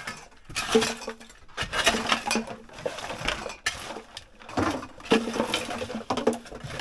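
Hard household items, glass and crockery among them, clinking and clattering as they are handled and moved about, with many irregular knocks.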